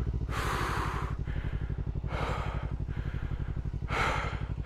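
Adventure motorcycle engine idling with a steady, even pulse, while the rider breathes out hard three times, in loud, noisy breaths.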